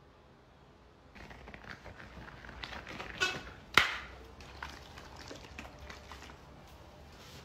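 Close handling noise from a rubber-gloved hand and a plastic bottle: rustling and scattered light clicks, starting after a quiet first second, with two sharper clicks a little past the three-second mark.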